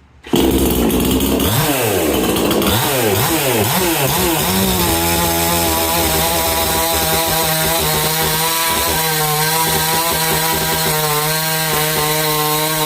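Ported and polished two-stroke chainsaw fitted with a Husqvarna 372 carburetor, coming in suddenly and loud, revved up and down a few times, then held at steady full throttle through a cut in wood.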